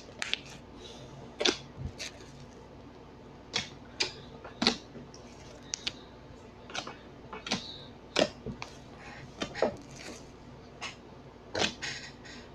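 Slime being squished and worked by hand, giving a string of irregular sharp clicks and pops as air pockets burst.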